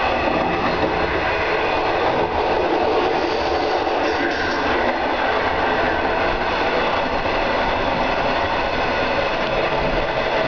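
Running noise of a moving SBB railway carriage heard inside its toilet compartment: a steady, loud rumble and rush of wheels on rails, open to the track through the late-1960s drop-chute toilet.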